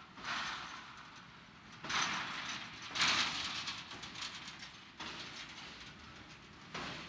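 Train running, its clattering noise swelling and falling every second or two.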